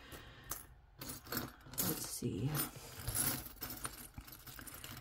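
Metal rings and earrings clinking and jangling against one another as fingers rummage through a pile of jewelry, a quick run of small clicks.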